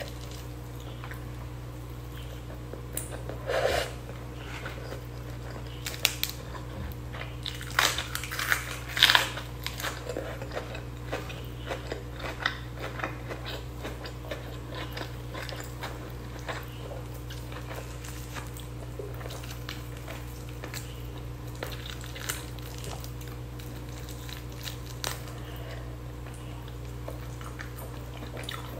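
Close-miked eating sounds: fingers tearing spicy chicken and squishing rice, with chewing. Louder crackles and smacks cluster between about 3 and 10 seconds in, then sparser small clicks follow over a steady low hum.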